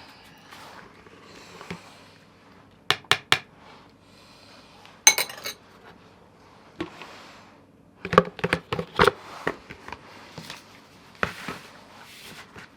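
Dishes and metal utensils being handled, clinking and clattering. Three quick clicks, then a single ringing clink about five seconds in, then a burst of clatter a few seconds later.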